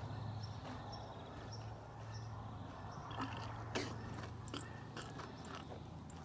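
Camel chewing, its teeth clicking and crunching in a run of sharp snaps from about halfway through, over a steady low hum.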